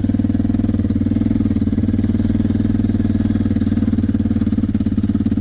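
Four-wheeler (ATV) engine running steadily under way, with an even, rapid pulsing exhaust note.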